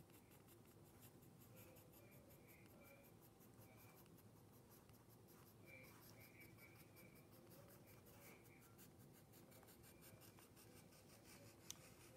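Faint scratching of a graphite pencil drawing long curved lines on paper on a clipboard, with a single sharp click near the end.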